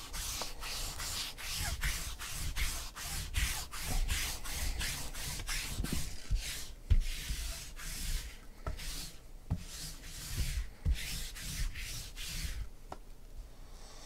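A lint roller rolled briskly back and forth over the tabletop, making a rasping stroke about three or four times a second. About halfway the strokes slow into longer, spaced passes, and they stop shortly before the end.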